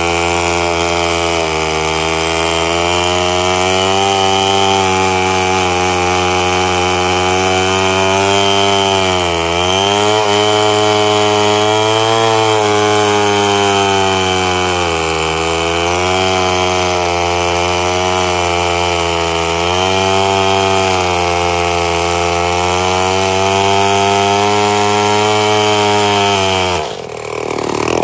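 Chainsaw engine running at high speed, its pitch sagging and recovering a couple of times as the load changes, then breaking off abruptly near the end.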